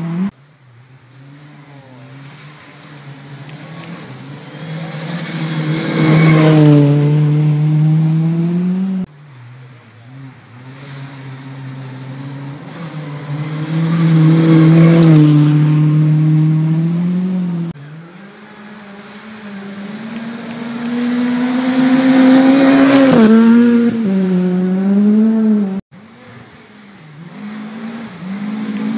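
Rally cars on a gravel stage approaching and passing one after another, each engine swelling to a loud peak with its pitch rising and falling through gear changes, then dropping away. Three passes are cut together with abrupt breaks, and a fourth car starts to approach near the end.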